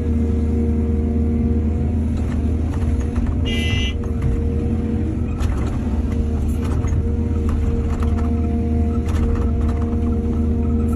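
Heavy diesel engine of an excavator loading soil running steadily, with scattered knocks. A brief high-pitched squeal comes about three and a half seconds in.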